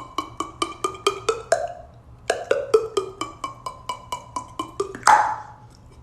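Beatboxed mouth percussion: a fast, even run of tongue clicks and pops, about six a second, many with a pitched note that slides downward. It breaks off briefly just before two seconds in, and a louder downward sweep comes about five seconds in.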